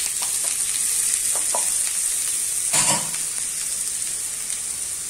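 Finely chopped onion sizzling in hot oil, tempered with cumin and asafoetida, in a frying pan: a steady high hiss, with a brief louder rush about three seconds in.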